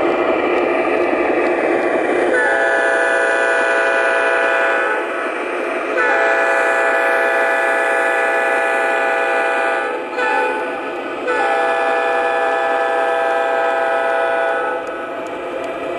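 Multi-chime diesel horn from the onboard sound system of an MTH O-scale BNSF ES44DC model locomotive, sounded in the grade-crossing pattern: two long blasts, one short, then a final long blast. It plays over steady running noise.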